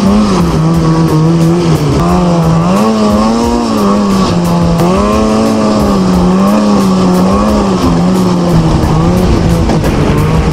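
Snowmobile engine running at trail speed, its note wavering up and down as the throttle is worked, over the rush and rattle of the sled on the snow.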